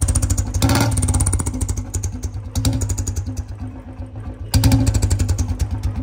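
Royal Enfield Bullet single-cylinder engine running at idle, its exhaust pulsing steadily through a homemade perforated whistle insert pushed into the silencer tip. It gets louder suddenly about four and a half seconds in.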